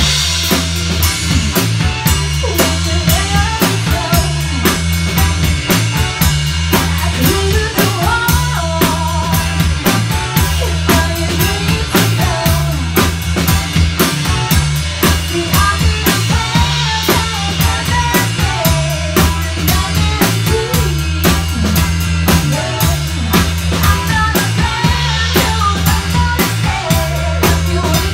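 Live band playing a rock song: a drum kit keeps a steady beat under electric guitar, with a heavy low end.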